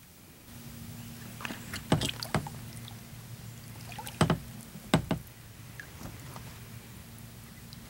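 Kayak paddling: a paddle working the water, with several sharp knocks of the paddle against the kayak, the loudest around two seconds in and again around four and five seconds in. A low steady hum runs underneath.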